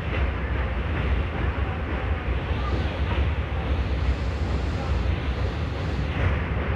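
Train running across a steel truss rail bridge: a steady low rumble of wheels on the track, with wind buffeting the microphone.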